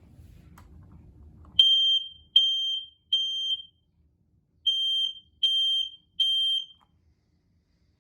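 Firex I4618-series ionization smoke alarm sounding on test: from about a second and a half in, loud high beeps in the temporal-three fire pattern, three beeps, a pause, then three more.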